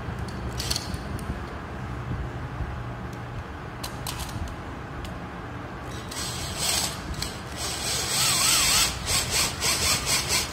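Power drill-driver with a long screwdriver bit driving the fixing screws of a 3-pin wall socket's faceplate, starting about six seconds in and running in short stop-start bursts. A few light clicks of handling come before it.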